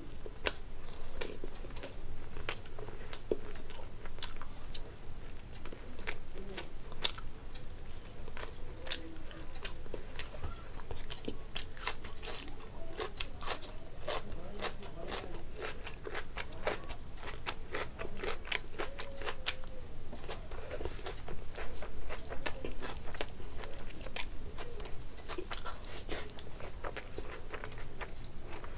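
A person chewing and biting while eating rice and chicken curry by hand: a dense run of short wet clicks from the mouth.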